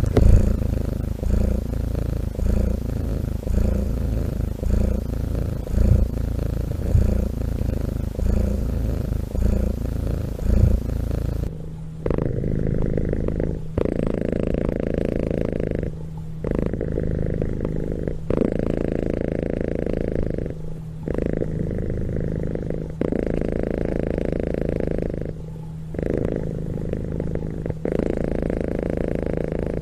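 Cats purring up close. A deep, pulsing purr gives way about eleven seconds in to a different purr that rises and falls in cycles of roughly two seconds, one swell per breath.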